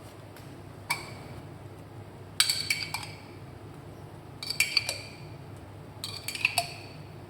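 A spoon clinking against a bowl in four short bursts, each with a brief ringing tone.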